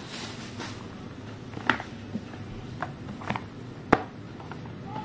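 Small cardboard product boxes being set down and stacked by hand: a few light, separate taps, the loudest about four seconds in.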